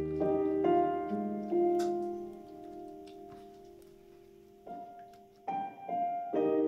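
Slow, gentle solo piano music: a few notes in the first second and a half, one long note slowly fading away, then fresh chords struck again near the end.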